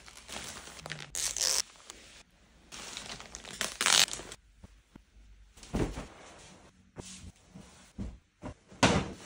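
Plastic poly mailer bag being cut open with scissors and torn, with loud crinkling of the plastic packaging in two bursts. Near the end come several soft thumps of pillows being handled on a bed, the loudest a little before the end.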